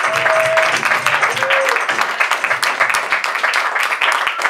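Small audience clapping, with a few whoops and voices among the applause.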